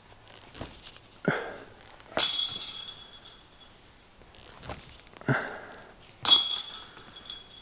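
Two disc golf forehand practice throws about four seconds apart. Each is a short thump of the step into the throw, then about a second later a loud rushing swish with a thin high ring at the release.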